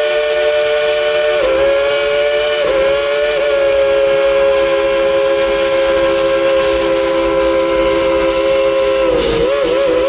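Steam whistle of Baldwin 2-8-2 steam locomotive No. 70 blowing one long, loud chord of several notes at once. Its pitch dips and wavers briefly a couple of seconds in and again near the end as the whistle valve is worked.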